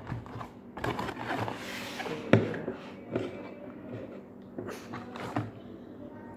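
A cardboard box being opened and handled, its flaps rustling and scraping, with several knocks and taps as a plastic mosquito-repellent refill bottle is taken out and set down on a wooden table; the loudest knock comes about two and a half seconds in.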